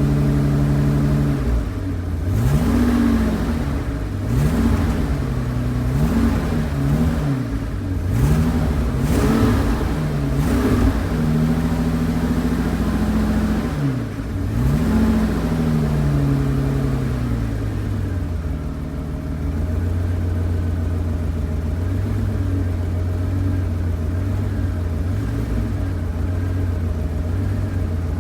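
BMW 750 E32's M70 V12 engine revved with a string of quick throttle blips, each rising and falling in pitch, held briefly at raised revs, then dropping back to a steady idle about two-thirds of the way in. The owner reports a rough idle that he thinks comes from running rich, with wet, sooty spark plugs.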